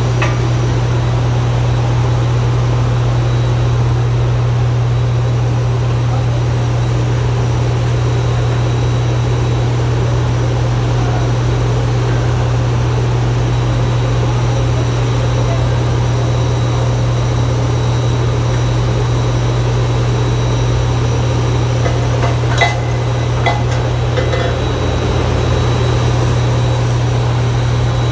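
A loud, steady low machine drone, with a few sharp metal clanks about three-quarters of the way through as the tow bar is coupled.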